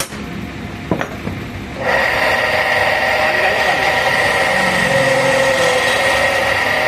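A couple of sharp metallic clicks, then about two seconds in a workshop machine starts abruptly and runs steadily and loudly with a high whine.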